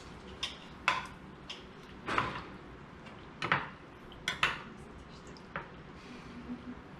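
Metal spoon clinking and scraping against a glass bowl as diced fish is stirred: a handful of irregular sharp clinks, some ringing briefly, spread over several seconds.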